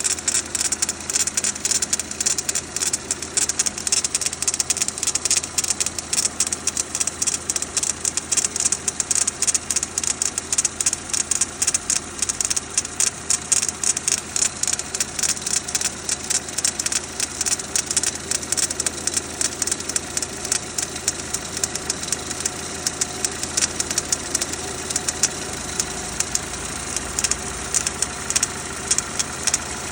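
Renault Duster's 2.0-litre F4R four-cylinder petrol engine idling from a cold start with a rapid, regular metallic knock. The owner says this knock appears after a cold start, lasts about two minutes and then stops.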